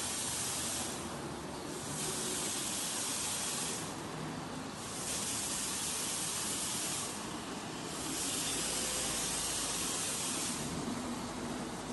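Automatic car wash running: a hissing spray of water that swells and fades four times, over the steady rumble of the machinery and its rotating brush.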